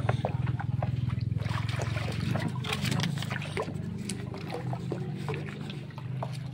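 A thin stream of liquid trickles and splashes into a bucket of soapy mixture while a wooden paddle stirs it round, with small irregular splashes and a steady low hum underneath.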